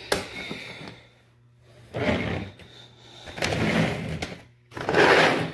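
A clear plastic model-train case is set down on a tabletop with a sharp click. Then come three sliding, rubbing handling noises, the last the loudest.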